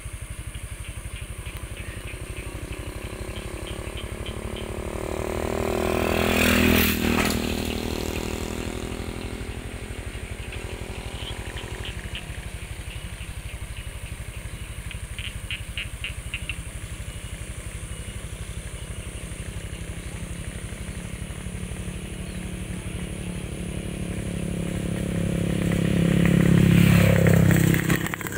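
Two motor vehicles pass by, one about seven seconds in and one near the end, each swelling and fading over a steady low rumble. In between, frogs call in short, rapid clicking trills several times.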